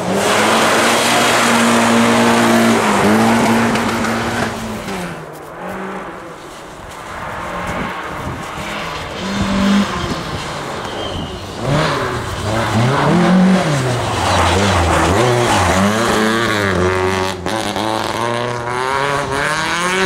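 Rally cars at full throttle on a snow stage: one car's engine passes early on, then after a lull a Volvo saloon approaches, its engine note climbing and dropping again and again with throttle and gear changes.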